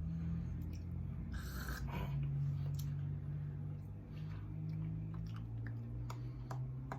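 A person chewing a piece of chocolate-orange candy, with small mouth clicks, over a steady low hum.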